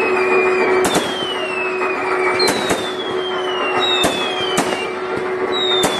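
Fireworks display: whistling fireworks going up with overlapping whistles that fall in pitch, and about six sharp bangs as shells burst. A steady hum runs underneath.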